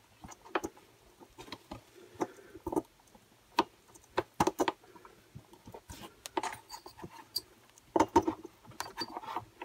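Irregular small clicks, taps and scrapes of hands handling the carburettor and plastic housing of a Stihl BG86 leaf blower, with a few sharper knocks in the middle and a busier cluster near the end.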